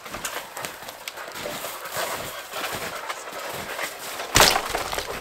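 Irregular crunching steps in snow and cracking of dry wood while firewood is being gathered, with one loud thud about four seconds in.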